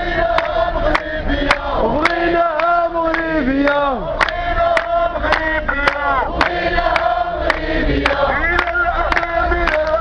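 Protest crowd chanting slogans in unison, many voices rising and falling together, to a sharp regular beat about twice a second.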